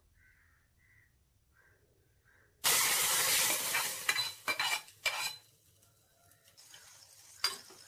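A spoon stirring the tempering into a pot of curry. A loud stretch of scraping and rustling starts suddenly about two and a half seconds in, followed by a few short knocks against the pot.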